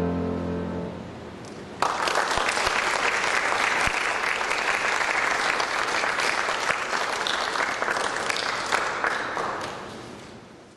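The band's final chord dies away, then audience applause breaks out suddenly about two seconds in and carries on, fading near the end.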